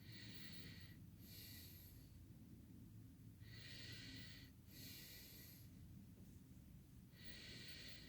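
Faint, slow breathing of a person close to the microphone: three breaths about three and a half seconds apart, each a pair of airy in-and-out sounds.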